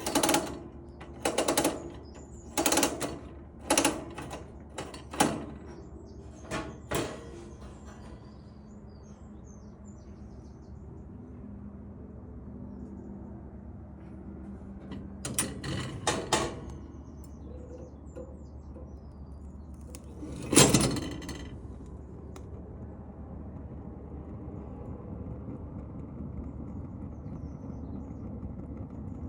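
Zibro Kamin kerosene heater being lit: a run of sharp mechanical clicks about once a second, a few more a little later, and one louder clack about two-thirds of the way through. A steady low noise runs beneath and grows slightly louder near the end.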